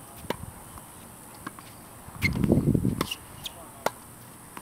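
Tennis balls struck by racquets on outdoor hard courts: about half a dozen scattered sharp pops. A brief low rumble, the loudest sound, comes about two seconds in and lasts under a second.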